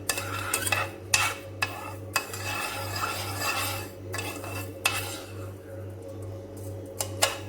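Spoon stirring sugar and water in a heavy-bottomed pan as the sugar melts into syrup for candy, with irregular clinks and scrapes against the pan.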